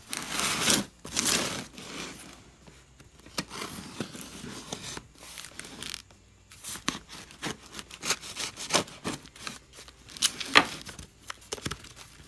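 Utility knife slicing through packing tape along a cardboard box seam, then tape and cardboard scraping, rubbing and clicking as the box is handled. Two louder slicing strokes come in the first two seconds, followed by scattered short scrapes and sharp clicks.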